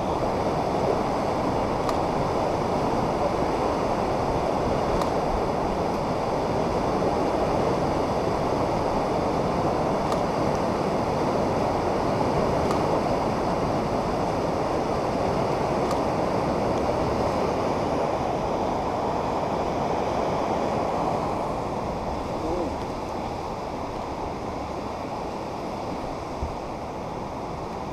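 Floodwater rushing in a swollen river: a steady, even rush of moving water that grows a little quieter near the end.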